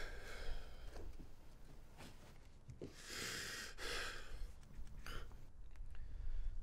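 A man's heavy, strained breathing: a long breath in and out about three seconds in, then a short sharp breath about five seconds in, over a low steady rumble.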